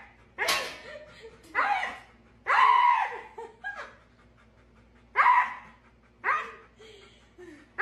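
Siberian husky vocalizing in a string of about eight short calls, each gliding up and down in pitch, roughly one a second: the husky 'talking' typical of the breed.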